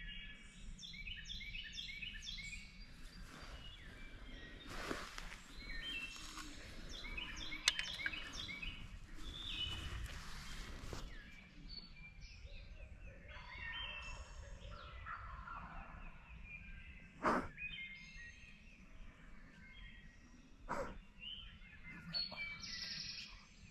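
Songbirds chirping and singing in a morning chorus, with a wild turkey gobbling now and then. Two sharp clicks stand out, one about two-thirds of the way in and another a few seconds later.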